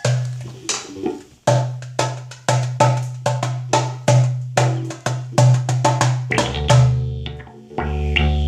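Percussion-led music: a steady beat of sharp drum strikes, about two a second, each carrying a low pitched tone. About six seconds in, a sustained low bass note enters under the beat.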